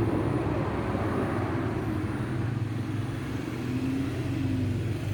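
A motor vehicle engine running steadily with a low hum.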